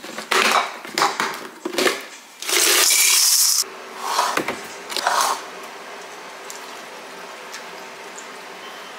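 Plastic cereal container clicked open and handled. About two and a half seconds in, cereal flakes pour into a ceramic bowl in a loud rattling rush lasting about a second, followed by a few more clatters. Milk then pours steadily from a carton into the bowl.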